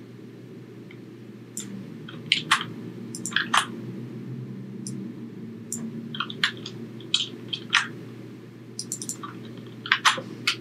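Computer keyboard typing: irregular key clicks, single and in quick clusters, starting about a second and a half in, over a steady low hum.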